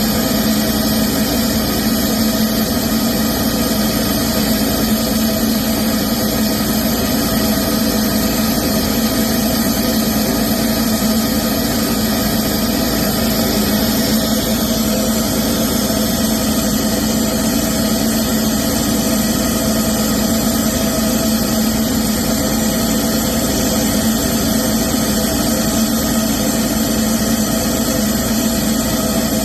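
Diesel engine running steadily at idle, with an even hum and no revving, during a particulate-filter regeneration.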